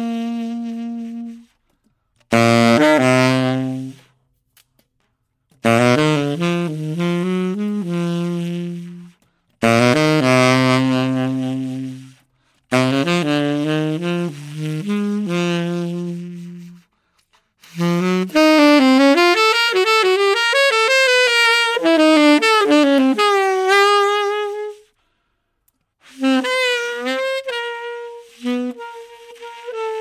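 Background music: a solo saxophone plays in short phrases, each followed by a brief silence, with bending, wavering notes in a longer phrase about two-thirds of the way through.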